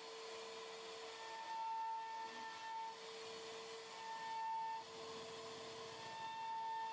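CNC router spindle running while its bit carves a relief pattern into wood: a steady whine, with a higher whistle that rises and drops away about four times as the cut goes on, over a faint hiss.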